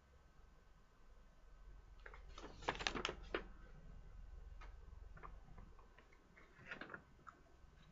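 Contents of a plastic model kit being handled: a brief burst of crinkling and sharp clicks about two and a half seconds in, then scattered light clicks.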